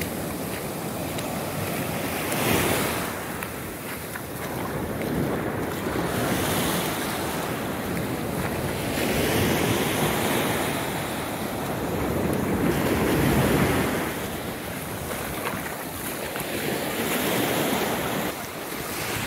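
Small sea waves breaking and washing up a coarse sand beach, the surf rising and falling every few seconds, with wind on the microphone.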